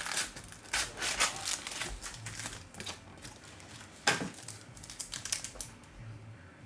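Trading card packaging being opened by hand: irregular rustling, crinkling and clicking of wrappers and cardboard, with one sharp knock about four seconds in.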